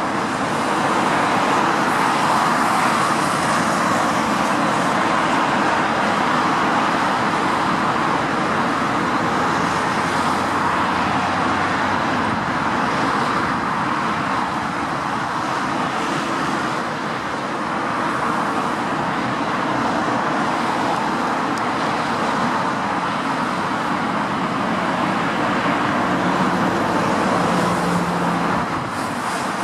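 Steady roar of an Airbus A380's four jet engines on final approach, heard from the ground, holding an even level throughout.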